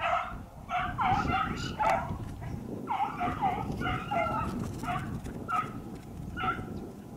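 Hunting beagles yelping, a run of short high calls that often fall in pitch, coming every half second or so over a steady low rush of background noise.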